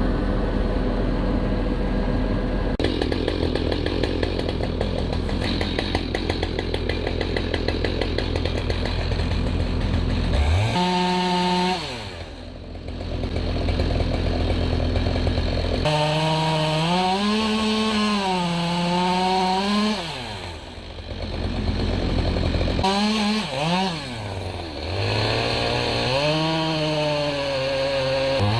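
A two-stroke chainsaw running hard for about ten seconds, typical of cutting into wood. Its engine note then drops and it runs free, revs rising and falling, with several quick throttle blips a little over twenty seconds in.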